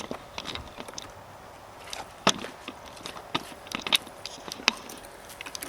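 Irregular light clicks and knocks, the sharpest a single knock about two seconds in.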